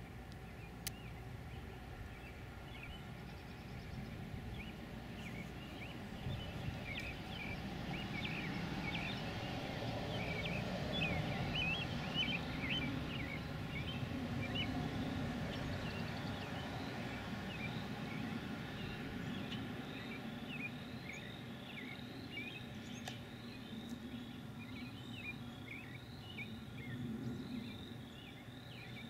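Outdoor field ambience: many short bird chirps and calls over a low steady rumble, growing busier a few seconds in. About halfway through, a rapid, evenly repeating high call joins in.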